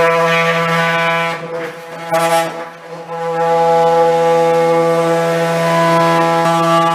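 Oscillating multi-tool running with a steady high-pitched buzz as it cuts into a car's front bumper. The buzz wavers and dips around two seconds in, then holds steady.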